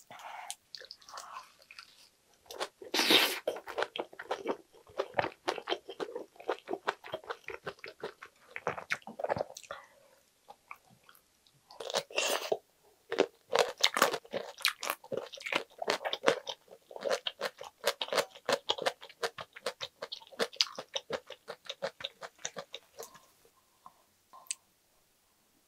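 Close-miked chewing of a lettuce-wrapped bite of spicy stir-fried pork intestines (gopchang) with vegetables: wet, crunchy chewing that runs on steadily, with a loud crunch about three seconds in and another bite about twelve seconds in, dying away near the end.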